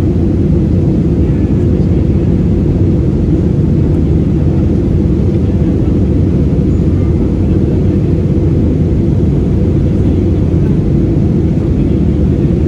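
Steady low rumble of an Airbus A320-216's CFM56-5B engines and the rushing air, heard inside the passenger cabin.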